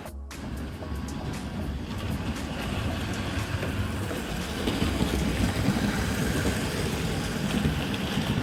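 A train running on track, a steady rumbling that grows louder about three seconds in.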